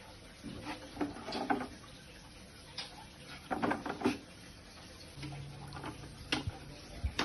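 Zeolite stones clicking and rattling against each other and the plastic of a bottle as they are dropped in by hand, in a few short spells of clatter: about a second in, around four seconds, and near the end.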